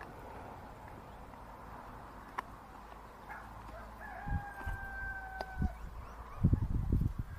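One long animal call, a single held note drifting slightly down, about a second and a half long, starting about four seconds in. Loud low thumps and rumbling follow near the end.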